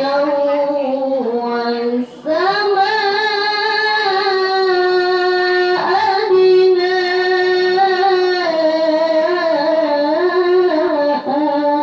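A girl chanting Qur'anic recitation in the melodic tilawah style into a microphone, holding long ornamented notes, with a short breath pause about two seconds in.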